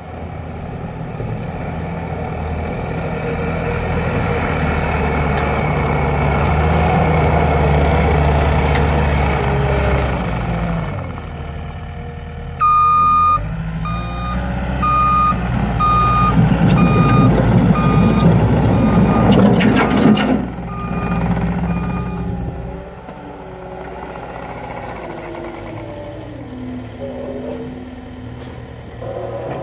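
Cat 259D compact track loader's diesel engine running as the machine moves, growing louder over the first ten seconds. About halfway in, its backup alarm beeps steadily for roughly nine seconds over engine and track noise as it reverses. The engine then settles to a quieter idle.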